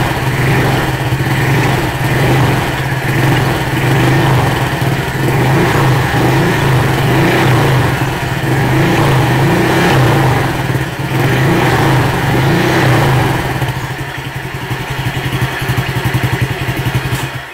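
Honda Click V2 scooter's single-cylinder four-stroke engine revving repeatedly through an MT8 aftermarket exhaust pipe, loud throughout, easing off near the end and cutting off suddenly.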